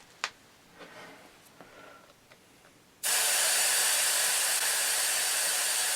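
A few faint clicks, then about three seconds in a sudden loud, steady hiss of air escaping through the valve of a lawn tractor tire's newly fitted inner tube as it is deflated. The tube is being let down because its valve stem is being drawn inward.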